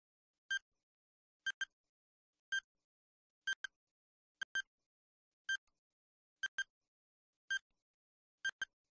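Countdown timer sound effect ticking about once a second, each tick a short high click, some of them doubled.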